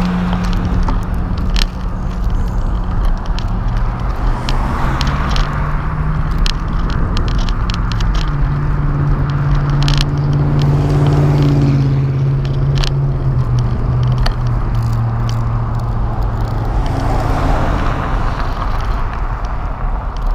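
Wind rumbling across the microphone of a handlebar-mounted camera on a moving bicycle, with cars passing on the road, a pickup truck right at the start, and a low hum through the middle. Scattered small clicks and rattles come from the bike going over the road surface.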